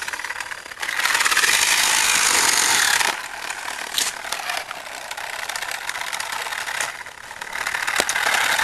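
Small off-road robot car's drive motors and gears running with a rattle. It is loudest for a couple of seconds early on and again near the end, with a few sharp clicks.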